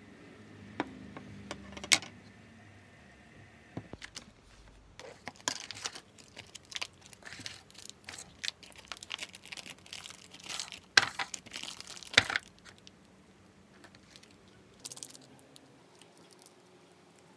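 A couple of sharp clinks of metal tongs against a ceramic bowl, then a long stretch of plastic food packaging crinkling and tearing as an instant-noodle cup and its sachets are unwrapped, loudest in two sharp rips a little after the middle, with one more short rip near the end.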